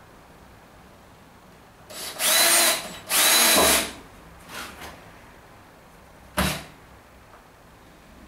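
Drill with a crosshead bit driving a long wood screw into timber: two loud bursts of whirring about two seconds in, then a short brief burst as the screw is seated. A single sharp knock follows a couple of seconds later.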